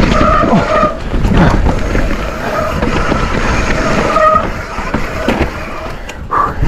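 Canyon Spectral AL 6 mountain bike descending a muddy dirt trail at speed: tyre roar on wet ground, the bike rattling over roots and bumps, and wind on the microphone, with several brief steady-pitched squeals, likely from wet disc brakes.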